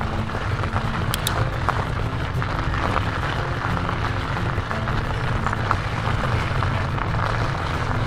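Background music of slow, held notes over a steady low rumble of wind and riding noise as a fat bike rolls along a snowy road.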